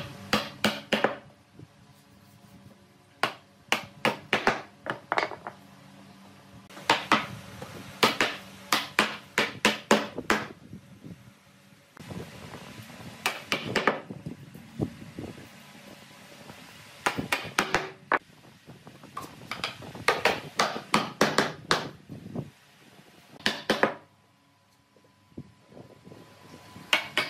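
Hammer striking nails into pallet wood, in short runs of several quick blows with pauses between.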